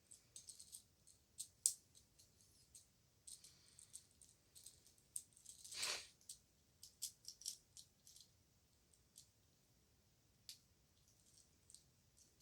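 Faint, irregular clicks and small rattles of a plastic Transformers Optimus Prime figure being transformed by hand, its parts snapping and shifting. There is one louder, brief scrape about six seconds in.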